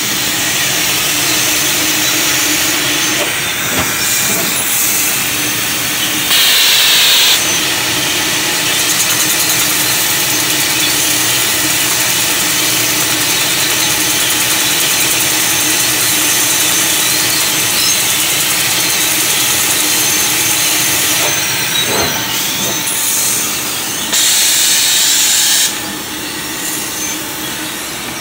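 Trumpf CNC laser cutter cutting 12 mm steel plate: a steady assist-gas hiss from the cutting head with a low hum underneath. Twice, about six seconds in and again near twenty-four seconds, the hiss turns louder and harsher for a second or so.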